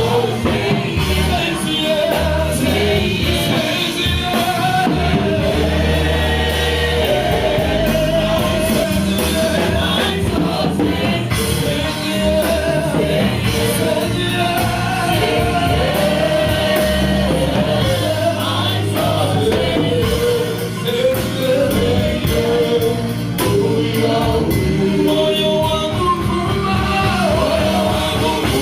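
Gospel praise music: voices singing together over a band with bass and drums, loud and steady.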